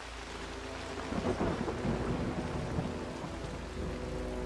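Steady rain with low rolling thunder that swells from about a second in.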